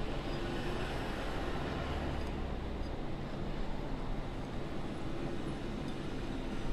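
Steady background hum and hiss, like a fan or distant machinery, with no distinct events.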